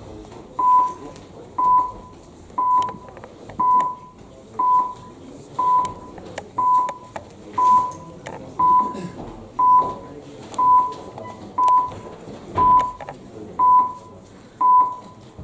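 Electronic council voting system beeping once a second, fifteen short identical beeps, as it counts down the seconds while the vote is open. A low murmur of the hall lies beneath.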